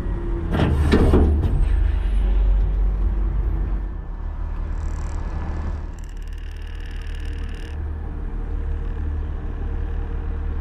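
Autocar front-loader garbage truck engine running with a steady low rumble. A loud burst of noise comes about half a second in, and hissing follows from about five to eight seconds in.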